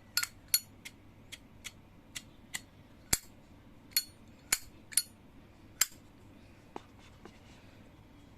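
Sharp metallic clicks and clinks of Zippo lighters' steel cases being handled, about a dozen at an uneven pace, thinning out near the end.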